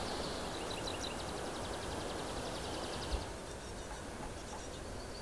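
Outdoor ambience: a steady wind-like hiss, with a rapid high-pitched trill from a small creature over the first three seconds and again faintly near the end. A single soft knock about three seconds in.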